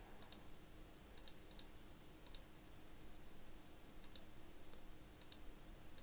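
Faint computer mouse button double-clicks: about six quick pairs of clicks, opening folder after folder in a file manager, over a faint steady hum.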